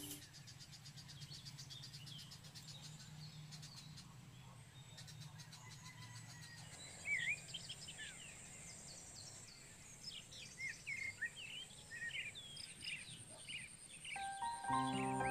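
Rural ambience: many small birds chirping, with short rising and falling calls from about seven seconds in, over a low steady hum and a fast, high ticking in the first few seconds. Music comes in near the end.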